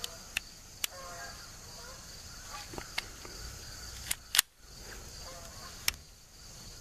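A handful of sharp metallic clicks from a Smith & Wesson M&P 22 Compact pistol being handled just after reassembly, its slide and action clicking, the loudest about four and a half seconds in.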